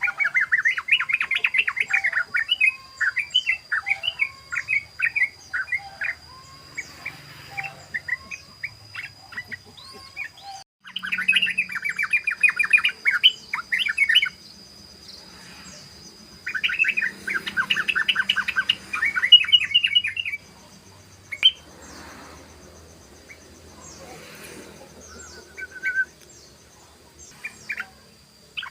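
Yellow-vented bulbul (trucukan) singing its rapid rattling 'ropel' song, in three long bursts of fast chattering notes with scattered single notes between them.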